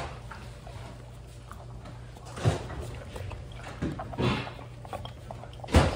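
Basset hound eating from a metal bowl in a wooden stand: chewing, with the bowl knocking and clattering a few times, loudest near the end.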